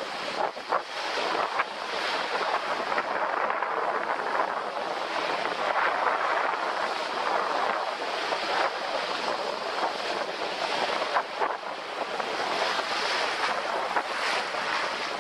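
Ocean surf breaking and washing up the sand around a rock at the water's edge: a continuous foamy hiss that swells and eases as each wave comes in, with sharp splashes now and then.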